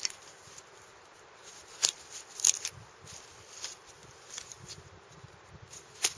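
A knife working small pieces of wood into tinder: a few sharp cracks of wood splitting about two seconds in, again half a second later and once near the end, with soft handling rustle between.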